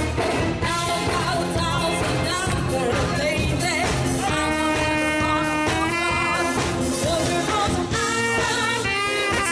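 Band music with a singer's voice carrying the melody over the accompaniment.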